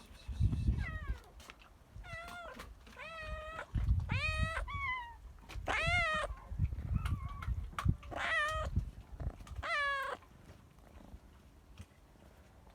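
A young animal, a lamb or a cat, calling about eight times, each call about half a second long and some wavering in pitch. Low rumbling noise sits underneath the calls.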